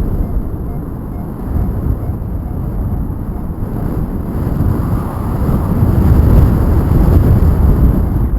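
Airflow buffeting the microphone of a paraglider in flight: a loud, uneven low rumble that swells about five seconds in.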